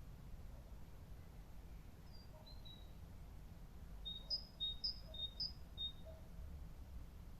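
Outdoor park ambience: a steady low background rumble, with a small songbird giving a couple of high chirps about two seconds in, then a quick run of alternating high and lower whistled notes from about four to six seconds in.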